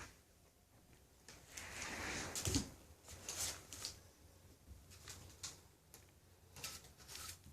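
English Bulldog puppies scuffling and rustling about, with a louder rustle about a second and a half in and a thump at two and a half seconds, then scattered light clicks and scrapes.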